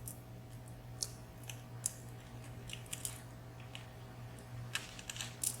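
Faint, scattered light clicks and taps from small lock pins being handled and flipped over on a work surface, a few quick ones near the end, over a low steady hum.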